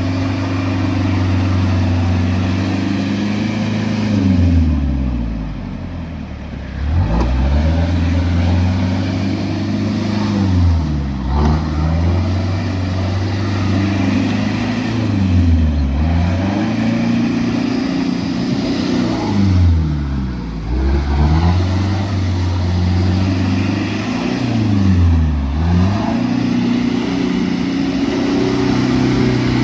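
Vehicle engine running under way. Its note falls and climbs back up again about five times, roughly every four to five seconds, as the revs drop and rise.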